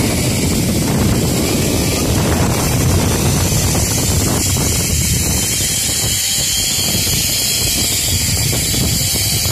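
Wind buffeting the microphone: a loud, steady rushing rumble.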